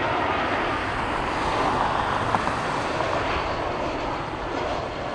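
Jet airliner engines making a steady rushing noise that swells slightly about two seconds in.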